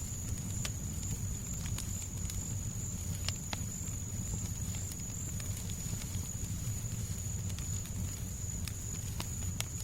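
Fireplace crackling, with sharp pops scattered about once a second over a steady low rumble of fire and background noise. A thin, steady high tone sits above it.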